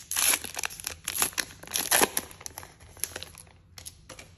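A trading-card pack's plastic wrapper being torn open and crinkled: dense crackling for about two seconds, then thinning to a few soft rustles and clicks as the cards come out.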